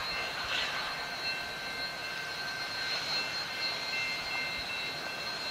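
Union Pacific 844, an oil-burning 4-8-4 steam locomotive, standing with its fire and steam running: a steady rushing hiss with a few thin, high whining tones held over it.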